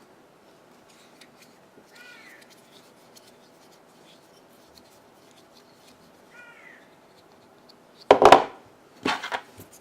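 Small clicks of knife parts being handled, with two faint short chirps, then a loud sudden noise about eight seconds in followed by a few more knocks.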